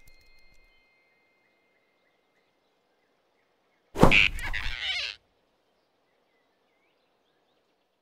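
Cartoon sound effect of a big rabbit snatching a flying squirrel off a branch: a sudden loud whoosh, falling in pitch, lasting about a second, about four seconds in. Faint forest ambience is the only other sound.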